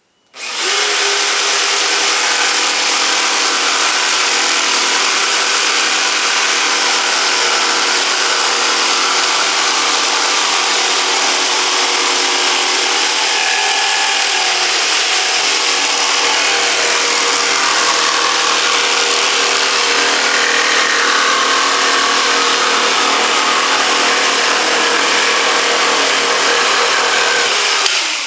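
Electric jigsaw starting up and cutting steadily along a straight line for nearly half a minute, its blade running without a break until it is switched off at the very end.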